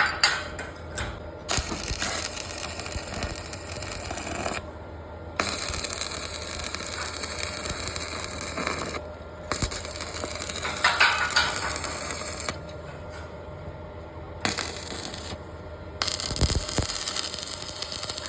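Electric arc welding crackling and sizzling in runs of a few seconds, with short pauses between beads.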